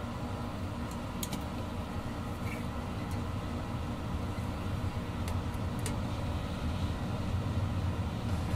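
Steady hum and drone from a plugged-in electric guitar and its amplifier, with a few faint clicks.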